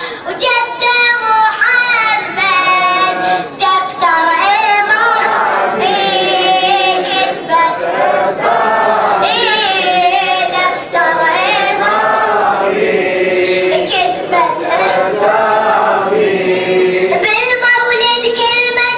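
Voices singing an Arabic devotional mawlid song in chorus, a melodic chant that rises and falls in long held phrases, with no drums heard.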